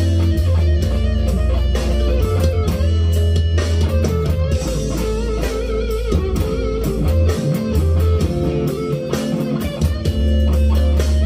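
Leo Jaymz SG-style solid-body electric guitar with humbucking pickups, played plugged in: a run of picked notes and chords, with wavering, bent notes around the middle.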